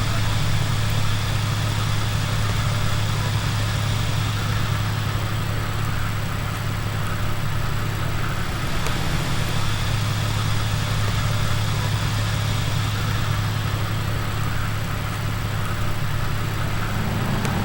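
A large engine running steadily at idle, a low, even drone that holds unchanged throughout.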